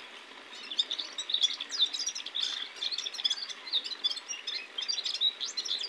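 Caged goldfinch (gulsar) singing: a fast, jumbled run of high twittering chirps and trills that starts about half a second in and carries on without a break.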